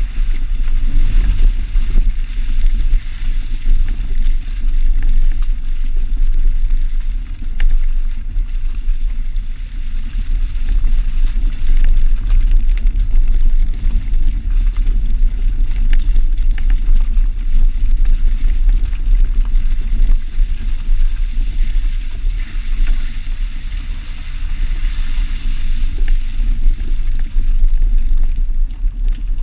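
Jeep driving, heard from a camera on its driver-side mirror: heavy wind buffeting on the microphone, with engine and tyre rumble underneath.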